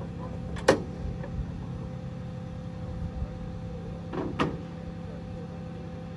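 Steady hum of the idling engine of the crane truck parked at the grave, with two short sharp knocks, about a second in and about four seconds in.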